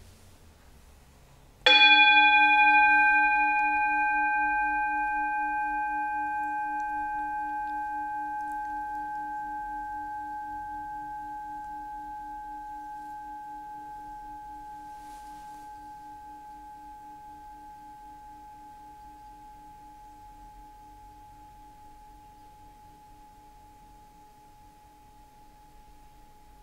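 Metal singing bowl struck once, about two seconds in, then ringing with a low pulsing hum and several higher overtones. The sound dies away slowly over some twenty seconds and is still faintly sounding at the end.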